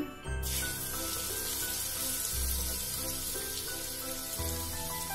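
Finely chopped ginger and garlic hitting hot oil in a kadai and sizzling steadily, starting about half a second in. Background music with a low bass line plays underneath.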